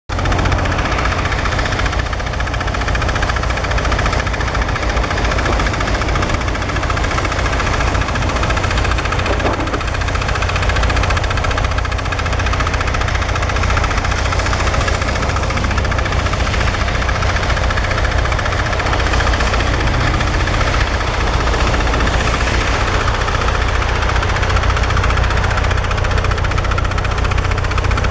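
Heavy diesel engines of snowplough trucks and an excavator running together in a constant low drone.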